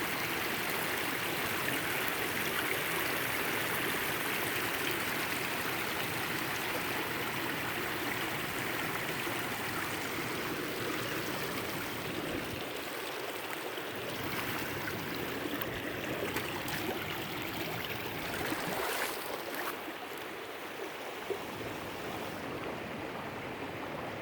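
Rapids of a creek running high over the rocks below a beaver dam: a steady rush of water, with a few brief clicks in the last third.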